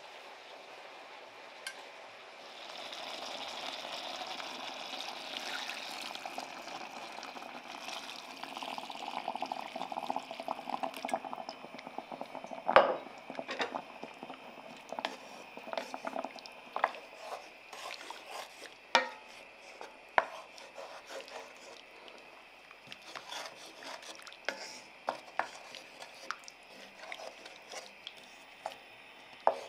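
Broth poured into a hot pan of seared pork and onions, a steady liquid hiss for several seconds, followed by a wooden spatula stirring and knocking against the enamelled cast-iron pan, the loudest knock about a third of the way through.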